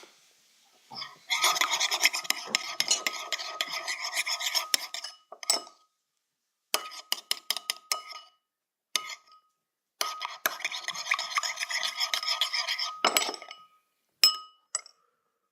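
A spoon stirring briskly in a container of slime ingredients (borax and water or glue mixture), scraping and clinking against its sides with a faint ringing, in two long spells. Between the spells come a run of separate clicks, and a few single clinks follow near the end.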